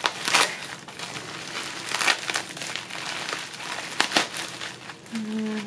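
Plastic bubble wrap crinkling and crackling as it is pulled open by hand, with sharper crackles now and then. Near the end a woman starts humming.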